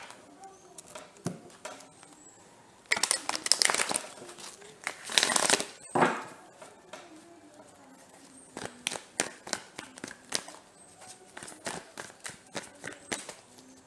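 A deck of tarot cards being shuffled by hand. Two longer swishing runs of cards sliding over one another a few seconds in, then a quick train of crisp card slaps and flicks, several a second, as the cards are shuffled overhand.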